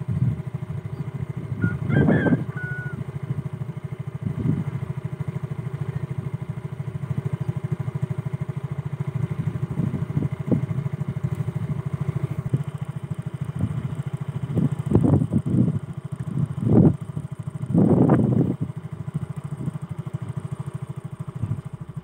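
Small motorcycle engine idling with a fast, even putter. A few short louder sounds break in about two seconds in and again between fifteen and eighteen seconds in.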